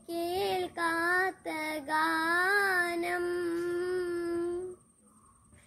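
A boy singing solo with no accompaniment: a few short sung phrases, then one long held note that stops about three quarters of the way through, followed by a pause.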